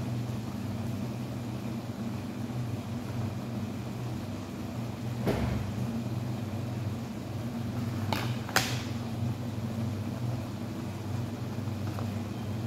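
Steady low fan hum running throughout. A dull knock comes about five seconds in, and two sharp clinks about eight seconds in, the second the loudest.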